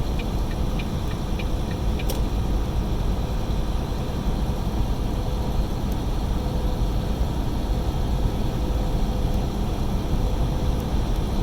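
Steady drone of a semi-truck's engine and road noise inside the cab at highway speed, with a faint steady hum. A turn signal ticks about three times a second and stops about a second and a half in, followed by a single click about two seconds in.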